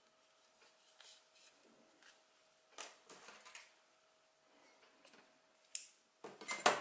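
Soft rustles and scuffs of hands handling a small crocheted toy head and drawing black embroidery thread through the crochet fabric, loudest in a short scuffle near the end, over a faint steady hum.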